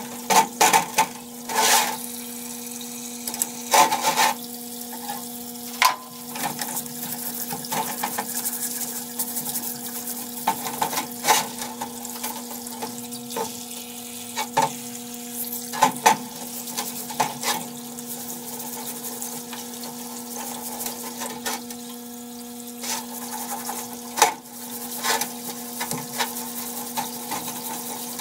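Parts-washer pump humming steadily while solvent streams from its flexible hose onto a Honda CT110 cylinder head, with splashing and scrubbing. Sharp knocks and clicks at irregular intervals as the metal head is turned and set against the steel tub.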